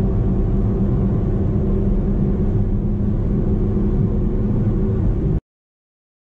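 Mercedes-AMG A35's turbocharged 2.0-litre four-cylinder at full throttle at high revs in fifth gear near 200 km/h, a steady, nearly flat engine note with road rumble. It cuts off abruptly about five seconds in, followed by silence.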